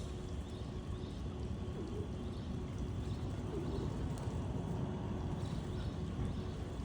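Pigeons cooing a few times over a steady low rumble.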